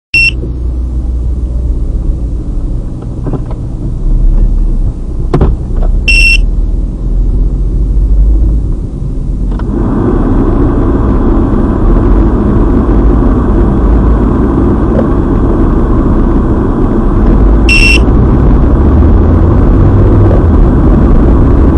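Car driving, heard from inside the cabin: a steady low engine and road rumble, with the road noise growing clearly louder about ten seconds in. Three short, high electronic beeps sound, one at the start, one about six seconds in and one near eighteen seconds.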